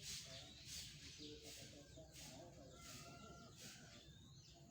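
Faint snoring breaths: a rasping hiss repeating about every 0.7 s, with a thin whistle now and then.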